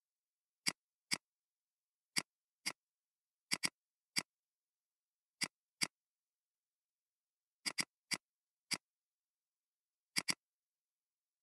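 Sharp, isolated computer clicks from a mouse and keys being worked, about fifteen of them, some single and some in quick pairs, irregularly spaced with dead silence between.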